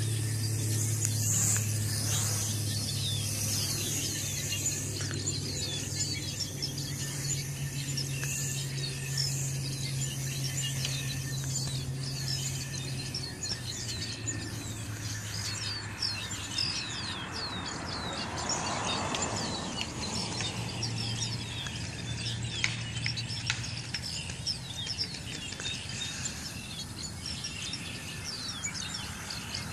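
Small birds chirping repeatedly in quick, short calls. Under them runs a steady low hum that shifts in pitch a few times.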